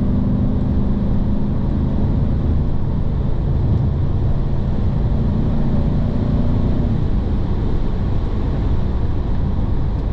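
In-cabin sound of a 2004 Bentley Arnage T24 Mulliner under way: its twin-turbocharged 6.75-litre V8 runs at a steady cruise as a low drone, under a constant rush of road noise.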